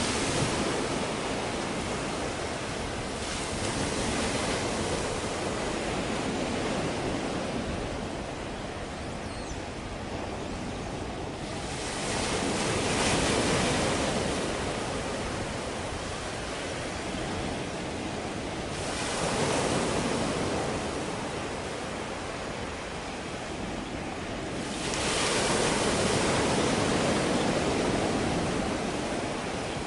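Sea waves washing in, swelling and fading in slow surges a few seconds apart.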